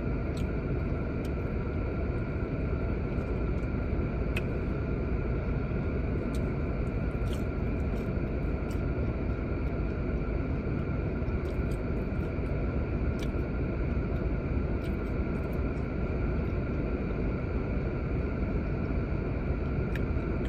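Steady hum of a parked car running, with its heater fan blowing, heard inside the cabin. A few faint clicks come and go over it.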